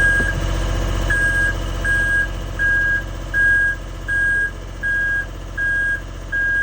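Engine of a piece of construction equipment running steadily while its backup alarm beeps in an even rhythm, about one high beep every three-quarters of a second. The alarm shows the machine is reversing or travelling.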